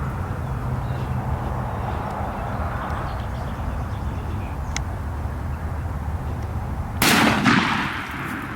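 A single shotgun blast from a CZ Reaper Magnum turkey shotgun about seven seconds in, its report trailing off over a second or so. Before it, only a steady low background rumble.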